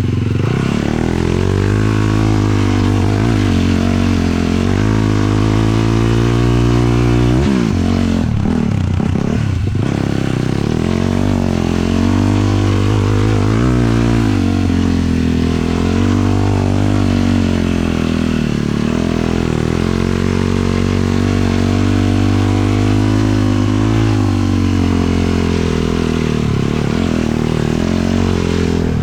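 450cc sport quad's single-cylinder four-stroke engine under way, revs rising and falling with the throttle, with a short drop in revs about eight seconds in.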